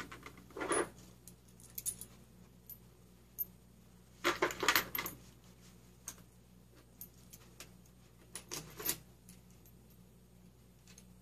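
Small steel bolts clinking and jingling as they are handled at a transmission case, in a few short clusters, the longest about four seconds in.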